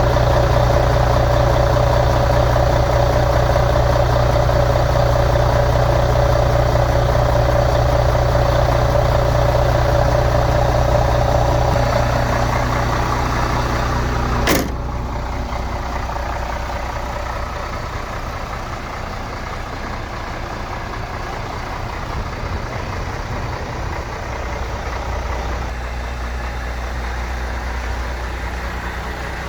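MAN TGA 18.410 tractor unit's straight-six diesel engine idling steadily. About halfway through there is a sharp click, after which the engine sounds quieter and duller and the higher whine is gone.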